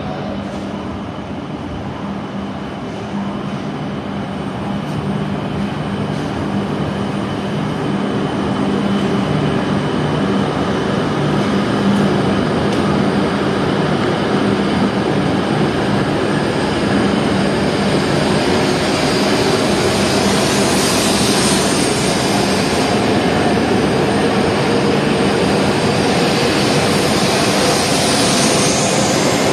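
E7 series Shinkansen pulling out and accelerating past on the platform track: a steady low hum, then a motor whine rising in pitch and a growing rush of air and wheel noise as the cars go by, getting steadily louder.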